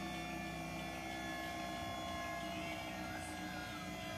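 Electric hydraulic pump running steadily for the van's lifting pistons: a low hum with a steady whine above it.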